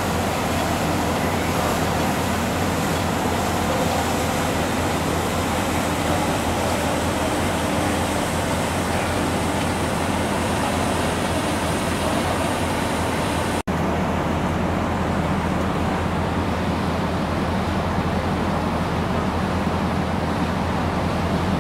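Steady rushing noise of a car ferry under way, heard from its open stern deck: the ship's engine rumble mixed with the wash of its wake. There is a split-second break in the sound about two-thirds of the way through.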